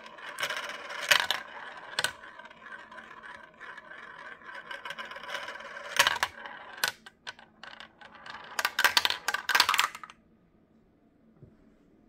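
Marbles rolling through a clear plastic toy marble run: a steady rolling whirr broken by sharp clicks and clatters as they drop from piece to piece, a quick flurry of clatters near the end, then the rolling stops suddenly.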